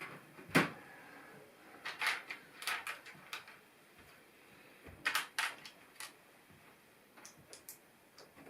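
Plastic LEGO pieces clicking and clattering as they are handled and snapped together: a sharp click about half a second in, then small clusters of clicks, fainter near the end.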